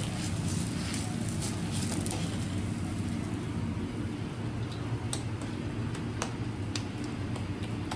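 Steady low hum and hiss of a kitchen with a paratha cooking on a gas stove's tawa. From about five seconds in come a few light clicks and taps of utensils.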